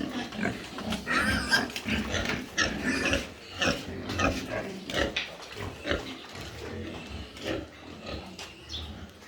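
Pigs grunting: many short, irregular grunts overlapping, with a higher-pitched call about a second in.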